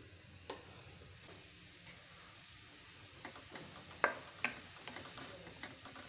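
Chopped onions frying faintly in ghee in an aluminium pan. A wooden spoon stirs them, clicking and knocking against the pan. The stirring picks up about three seconds in, with the loudest knocks just after the middle.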